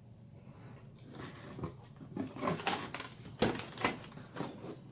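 Handling noise from a circular saw and its carry bag being moved and picked up: a run of irregular clicks, knocks and rustles, busier from about two seconds in, with the loudest knock about three and a half seconds in.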